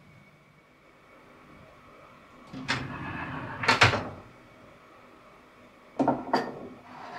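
A kitchen cupboard door opening with a rattle and a couple of knocks. About three seconds later a ceramic mug is set down on the cupboard shelf with two quick clinks, and a fainter one follows.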